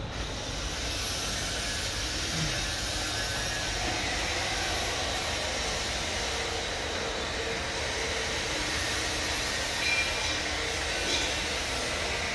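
Conveyor-belt rice-crust fryer running: a steady, even mechanical noise from the machine, with a couple of faint clicks near the end.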